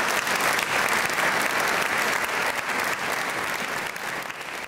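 Audience applauding in a dense, steady stream of claps, easing off slightly near the end.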